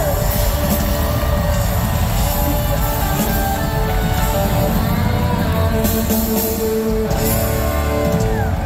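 Live rock band playing the instrumental close of a song: electric guitar over a drum kit, with cymbal crashes about six and seven seconds in.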